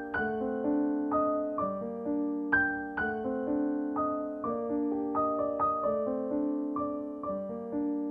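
Background solo piano music: a gentle, steady run of single struck notes and chords, each fading after it is played.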